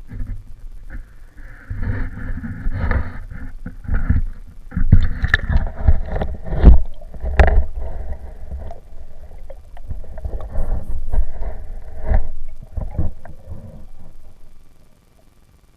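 Water sloshing and splashing close to the microphone, with irregular bumps and knocks, stopping suddenly a second before the end.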